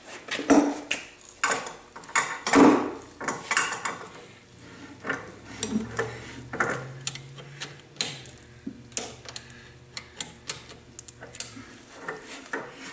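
Irregular metallic clicks and clunks from the Ingersoll Rand 242 compressor's crankshaft, connecting rods and governor weights as the crank is turned by hand, checking that the reassembled lower end turns freely. A low steady hum comes in about five seconds in and stops shortly before the end.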